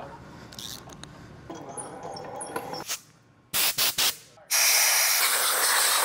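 Compressed-air blow gun blasting metal chips out of a freshly tapped NPT thread in the engine block. It gives three short puffs about three and a half seconds in, then one long steady blast from about four and a half seconds.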